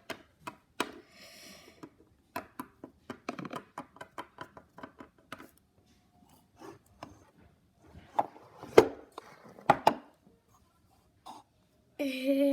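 Small plastic toy figures and props being handled and set down on a hard surface: a string of light clicks and taps, quick in the first half, with a few louder knocks later on. A short held voice-like note comes in just before the end.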